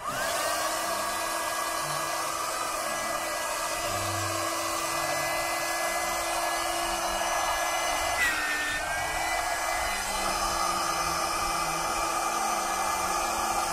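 Car-powered electric air pump starting up with a rising whine, then running steadily as it inflates the inflatable car mattress set. About eight seconds in, its pitch dips briefly and then recovers.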